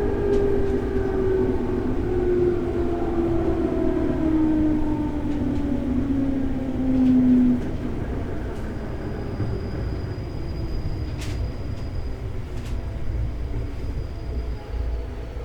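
Interior running sound of a JR 211 series electric train: a steady rumble of wheels on rail with motor and gear whine falling in pitch as the train slows, cutting off about seven and a half seconds in. After that the coasting rumble is quieter, with a few faint clicks and a thin high tone.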